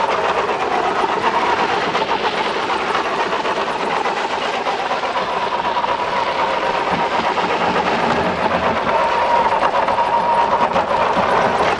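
1/10-scale RC crawler truck on a CC01 chassis driving, its 55-turn Tekin brushed electric motor and gearbox giving a steady whine over the hiss of its tyres on icy pavement. The whine grows a little stronger near the end.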